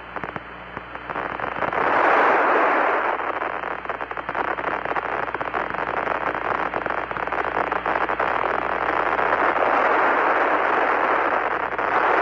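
Radio static on the Apollo 11 air-to-ground voice link: a crackling hiss that swells up about a second in and stays strong. It is the sign of the signal from the lunar module breaking up during a communications dropout.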